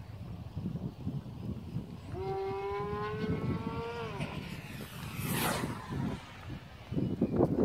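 Electric RC pylon racer flying past: the whine of its geared Peggy Pepper 2524 motor and 12x13 propeller rises slightly for about two seconds, then drops in pitch and fades, followed about a second later by a rushing whoosh. Wind buffets the microphone, louder near the end.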